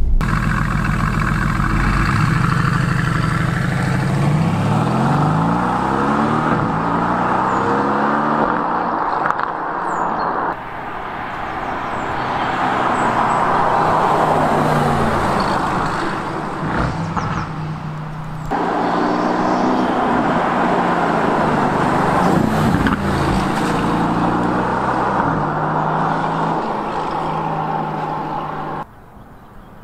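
Mercedes-AMG GT S twin-turbo V8 accelerating hard along a road. Its engine note climbs in pitch again and again as it pulls through the gears, over a montage of passes that cuts off suddenly a few times.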